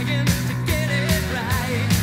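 Background music: a song with a wavering sung vocal line over a steady drum beat, about two hits a second.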